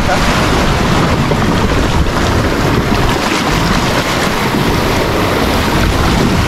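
Sea surf washing and breaking against rocky shore, a steady loud rush, with wind buffeting the microphone.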